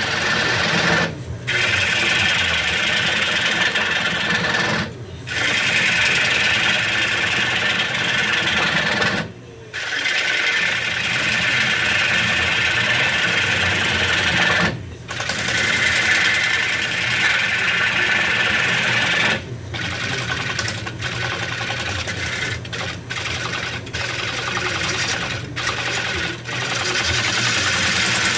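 Bowl gouge cutting a spinning wooden bowl blank on a lathe while rough-turning: a loud, steady cutting noise over the lathe's low hum. The cut breaks off briefly as the tool lifts, about every four to five seconds at first and more often near the end.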